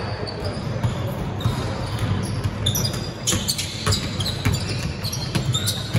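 Basketball being dribbled on an indoor court: irregular thuds of the ball striking the floor, over steady low background noise of the gym.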